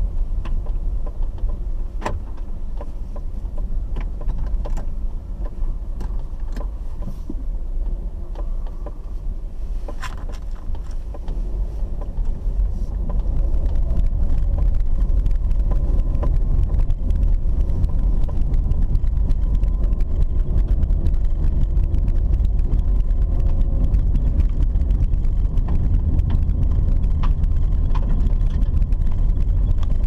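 Car driving on a dirt road, heard from inside the cabin: a steady low rumble of engine and tyres, with a few light knocks in the first ten seconds. It gets louder about 13 seconds in.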